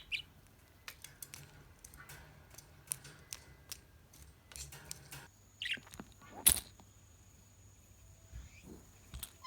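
A budgerigar giving a couple of short falling chirps amid scattered light clicks, with one sharp, louder click a little past the middle.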